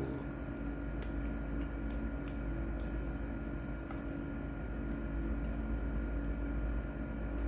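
A steady low mechanical hum and rumble, with a few faint scattered ticks.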